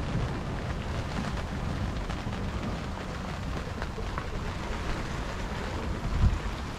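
Steady wind and water noise aboard a sailboat heeled under sail in rain: wind rumbling over the microphone, water rushing along the hull and rain on the sprayhood. A louder gust comes about six seconds in.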